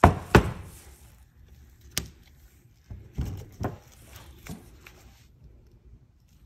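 A firm block of cold-process soap knocked down onto a cutting board: two sharp knocks about half a second apart, the loudest sounds here. Several lighter knocks and taps follow as the block is shifted by hand and a knife is picked up.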